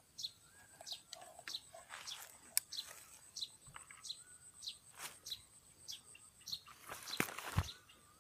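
A bird calling over and over in short falling chirps, about two a second, over a faint steady high whine. A few sharp clicks, and a louder knock near the end.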